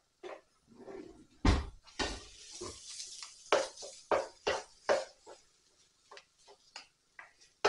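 Wooden spoon and plastic spoon knocking and scraping in a non-stick frying pan, breaking up a block of raw minced pork, in irregular strokes. A heavier thump about one and a half seconds in is the loudest.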